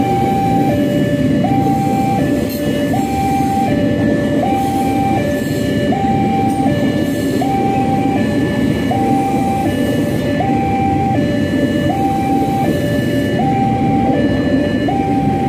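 A KRL commuter electric train running along the tracks with a steady low rumble. Over it a two-tone warning alarm sounds throughout, stepping evenly between a higher and a lower pitch about every three quarters of a second.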